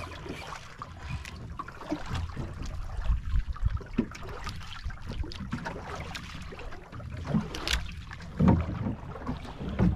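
Wind on the microphone and water lapping against the hull of a small outrigger boat drifting on open sea, with scattered knocks and clicks.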